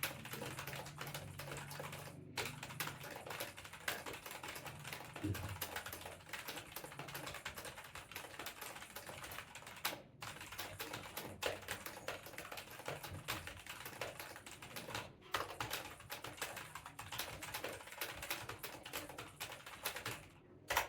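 Mechanical keyboard being typed on fast and without let-up, a dense stream of key clicks, broken by brief pauses about two, ten and fifteen seconds in.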